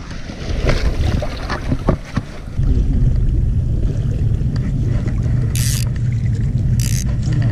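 Wind rumbling on the microphone over a flowing creek: a steady low rumble that sets in suddenly about two and a half seconds in, after a few knocks from handling the fly rod and line. Two short high buzzes come near the end.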